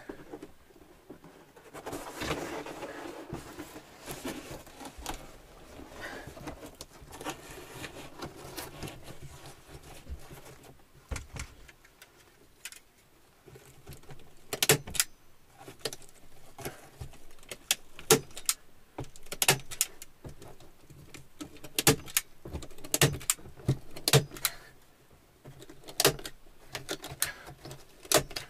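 Rustling and crackling of a stiff sheet of peeled birch bark being handled. From about halfway on come many sharp, irregular clicks and light knocks.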